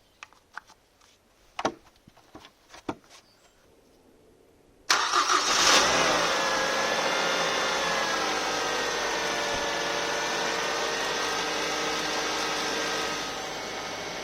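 A few light clicks and knocks, then about five seconds in a Mazda LF 2.0-litre four-cylinder petrol engine starts at once on the first try, flares briefly and settles into a steady fast idle while cold, freshly filled with new oil after a combustion-chamber decarbonising flush. The idle eases down slightly near the end.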